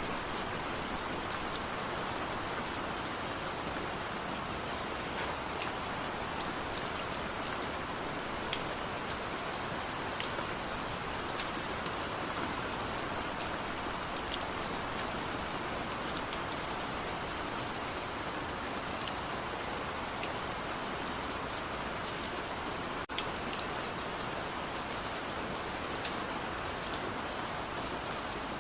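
Steady rain falling: an even hiss of rain with many scattered sharp taps of individual drops.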